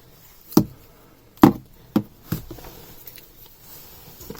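A cardboard shipping box being handled for unboxing: four or five sharp knocks, about half a second to a second apart, the second one the loudest.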